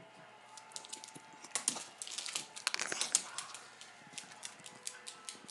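Small terrier's claws clicking and skittering on a hardwood floor as it scrambles off: a quick, irregular run of taps, thickest about a second and a half in and thinning out after.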